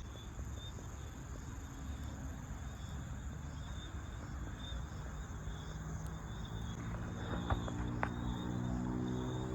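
Crickets chirping steadily over a low rumble of background noise. About seven seconds in, a low humming tone with several overtones joins them.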